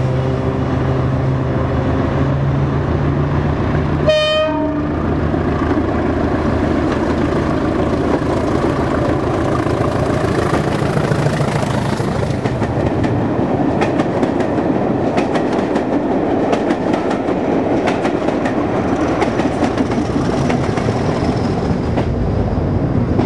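A Class 20 diesel locomotive passes under power with a steady engine note, and about four seconds in gives one short horn blast. After it the coaches roll by, their wheels clicking over rail joints in repeated groups.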